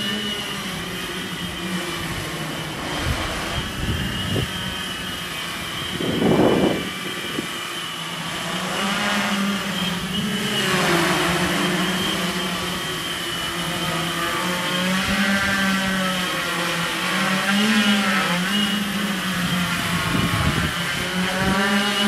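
Hexacopter's six electric motors and propellers whirring as it hovers in strong wind, the pitch wavering up and down as the motors speed up and slow to hold position against the gusts. Wind buffets the microphone, with a loud rumbling gust about six seconds in.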